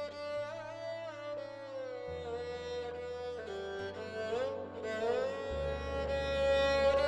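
Slow background music: a string instrument plays a melody that slides between notes, over long held low notes that change every second or two, growing louder toward the end.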